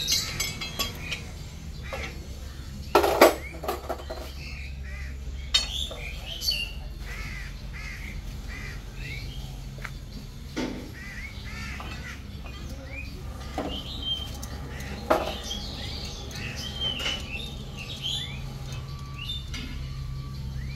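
Irregular metallic clanks and knocks of tools, the loudest about three seconds in. Crows cawing and other birds calling in short repeated notes sound over a steady low hum.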